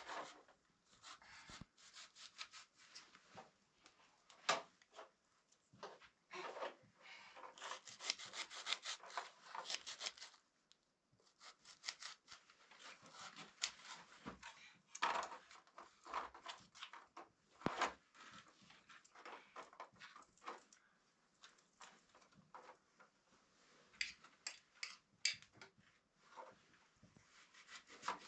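Irregular scraping and rubbing with many light knocks and clicks, coming in bursts with short pauses between them.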